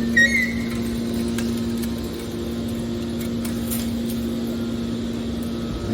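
Hydraulic metal baler running, its power unit giving a steady hum, with a short high squeak just after the start.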